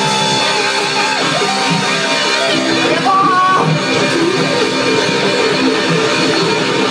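Live rock band playing, with electric guitar to the fore over bass and drums. A melody line slides up and holds a high note about three seconds in.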